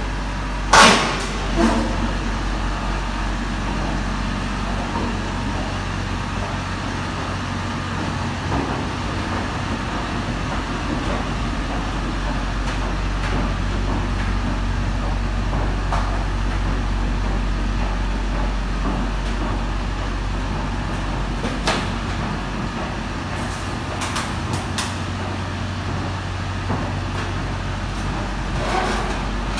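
Volvo EC55D mini excavator's diesel engine running steadily as the machine tracks out of a shipping container, with a few sharp clanks, the loudest about a second in.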